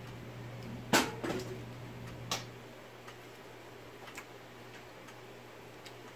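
A few irregular sharp clicks and taps of eating soup and bread at a table, the loudest about a second in, over a steady low hum.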